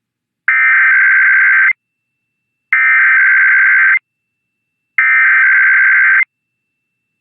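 Emergency Alert System SAME header: three identical bursts of warbling digital data tones, each about a second long with a second of silence between, the coded header that opens a required weekly test alert.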